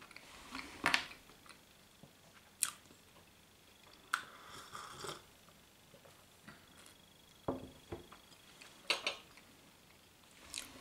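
Small sounds of someone eating and drinking tea from a glass: scattered short clicks and knocks as the glass is handled, a sip, and chewing, with a longer rustling noise about four seconds in.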